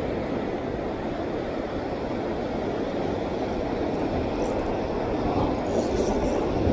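Steady rumbling wash of rough sea surf breaking against rocks.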